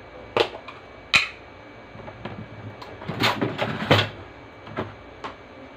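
Sharp clicks and light knocks of objects being handled: two single ones early, a quick cluster about three to four seconds in, and two fainter ones near the end.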